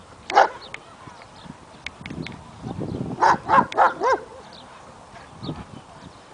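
German shepherd dog barking: one bark, then a quick run of four or five barks about three seconds in, the last ones rising and falling in pitch.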